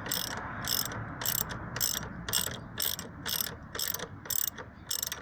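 Socket ratchet wrench clicking in short rattles on each back-swing, about two strokes a second, as the alternator belt's adjusting bolt is turned to take up belt tension.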